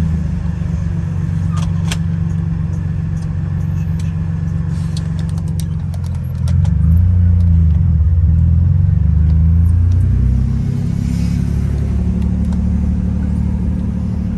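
BMW M3 engine running at low speed, heard from inside the car, its pitch rising and falling as it idles and moves off, louder for a few seconds in the middle. A couple of light clicks about two seconds in.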